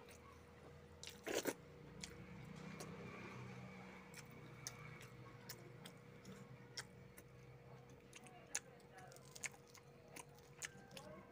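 Eating sounds of a person eating rice and fried fish by hand: scattered chewing and mouth clicks, with a louder crunch about a second in, over a faint steady hum.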